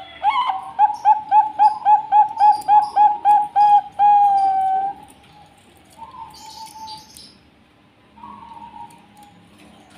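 Zebra dove (Bangkok-strain perkutut) singing: a quick run of about a dozen short, clipped coos at roughly four a second, ending in one long held note. A few fainter coos follow.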